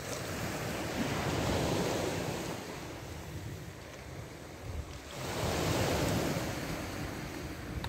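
Sea waves washing onto the shore, swelling and falling back twice, with some wind on the microphone.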